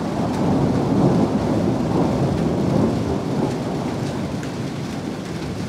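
Thunder rumbling after a nearby lightning strike, swelling over the first couple of seconds and then slowly fading.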